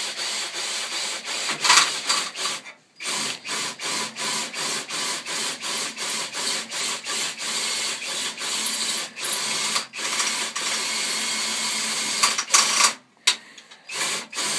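Power drill with a 1/8-inch cobalt bit drilling through layered thin stainless steel stovepipe. The trigger is pulsed in quick bursts, about two a second, to keep varying the speed so the bit bites without overheating. It stops briefly about three seconds in and again a second before the end.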